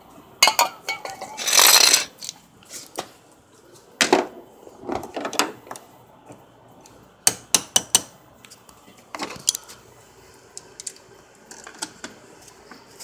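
Hand tools clinking and knocking as they are handled, with a short hiss about two seconds in and a quick cluster of sharp clicks about seven seconds in. Near the end come faint ticks of a wrench working on a car battery terminal.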